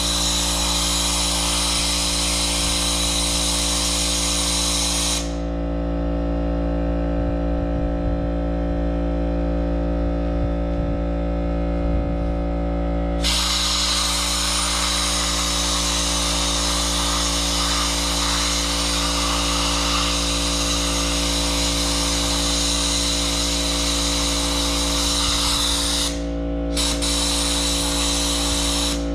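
Abrasive-blast spark plug cleaner hissing as compressed air at 90 psi blasts grit over a fouled spark plug's tip, in three bursts: about five seconds, then after a pause of about eight seconds a long burst of about thirteen seconds, a brief break, and a last short burst. A steady low hum runs underneath.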